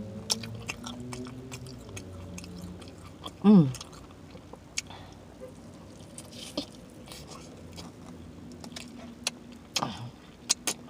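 Close-up chewing and lip-smacking on spicy jerk chicken, with many wet mouth clicks. About three and a half seconds in there is a short, loud vocal sound falling in pitch, and a weaker one near the end.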